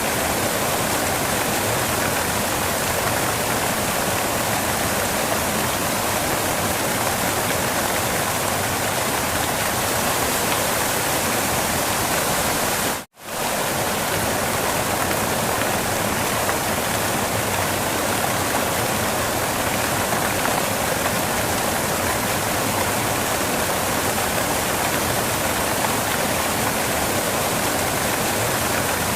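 Waterfall rushing in a steady, even hiss of falling water, cutting out for a split second a little before the middle and then carrying on unchanged.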